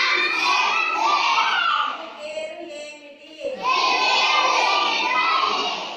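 A class of children reciting in unison, twice, with a single voice leading in between, in a small room.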